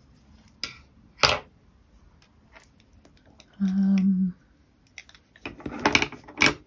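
Watercolour pencils clicking and clattering as they are handled and picked through: a couple of sharp clicks in the first half and a busier clatter near the end. A brief steady hum sounds midway.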